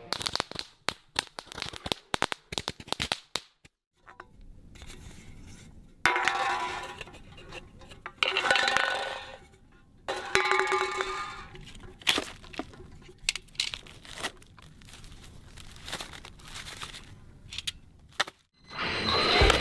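A rapid run of sharp cracks and pops for the first three seconds or so, typical of firework crackling. After a short lull come separate taps, clinks and scrapes of cans and firework tubes being handled on asphalt.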